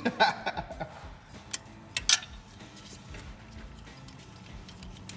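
Scattered sharp metallic clicks and clinks of a hand wrench working on the knock sensor in the engine block, the loudest pair about two seconds in, then fainter ticks.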